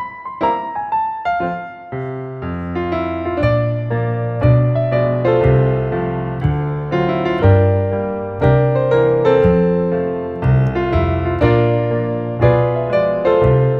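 Instrumental background music: a melody of struck, decaying notes, with a low bass part that comes in about two seconds in.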